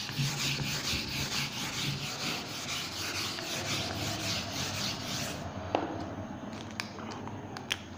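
Hand-held board eraser scrubbing marker off a whiteboard in quick back-and-forth strokes. It stops about five and a half seconds in, leaving a few light clicks.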